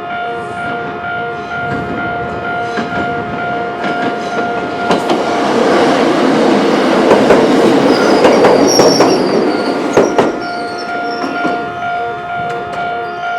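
Choshi Electric Railway level-crossing alarm sounding its robot-like warning: a steady high tone over a fast-pulsing lower tone. From about five to ten seconds in, a train passes over the crossing, its wheels clacking over the rail joints and drowning the alarm. The alarm cuts off at the very end.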